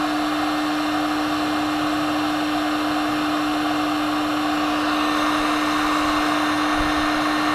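Cheap electric heat gun running steadily: a constant motor hum under a rush of blown air.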